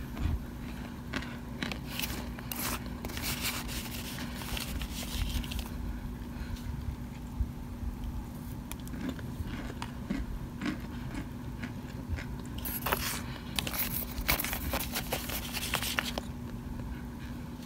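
A plastic spoon crunching and scraping through chunks of cornstarch in a glass bowl, in two bouts of crisp crackling: one about two to five seconds in, the other from about twelve to sixteen seconds.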